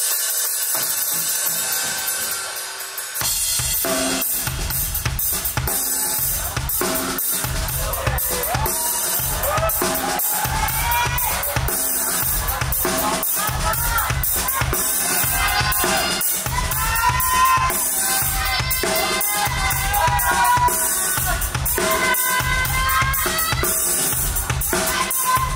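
Live band music: a held chord fades out over the first three seconds, then the drum kit comes in with a steady kick-and-snare beat and bass, and from about eight seconds a sliding melodic lead line plays over it.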